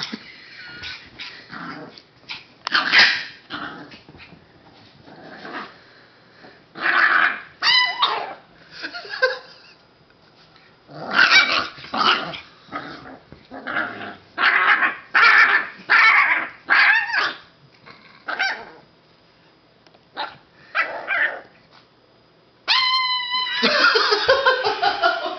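A small puppy growling, yapping and barking in bursts during rough play. About 23 seconds in, it gives one high, clear shriek, and a person then laughs.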